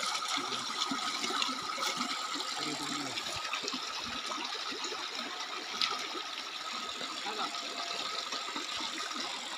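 Shallow stream water running and splashing over rocks and stones, a steady rushing noise.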